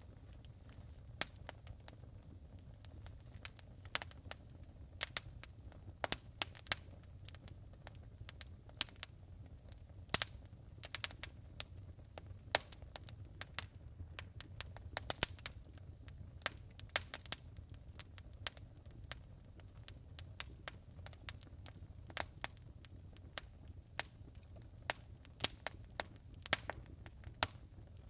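Wood burning in a fireplace: irregular sharp crackles and pops, at times several in quick succession, over a faint low rumble.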